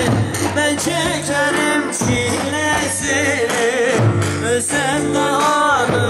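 Live band music with a male singer: an ornamented, wavering vocal line over steady bass notes.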